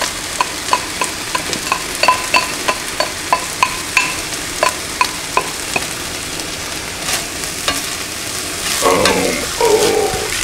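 Rice and mushrooms sizzling in a frying pan. Over the first half, a spatula taps out a quick run of ringing clicks, about three a second, knocking rice out of a ceramic bowl. Near the end the spatula stirs and scrapes through the pan.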